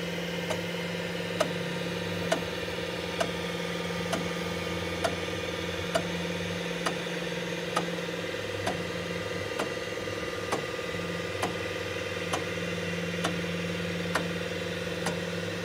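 A machine running steadily with a hum, and a sharp knock repeating evenly a little faster than once a second.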